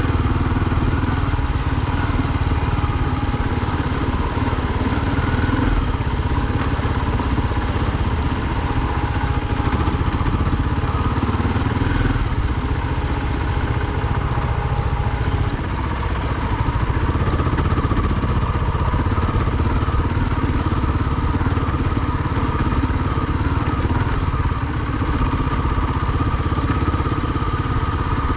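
Dirt bike engine running steadily while the bike is ridden off-road.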